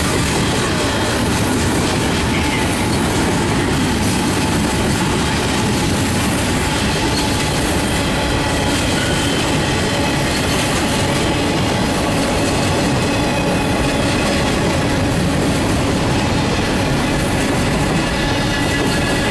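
Freight cars of a mixed freight train rolling past close by at a steady pace: a loud, even rumble and rattle of steel wheels on the rails.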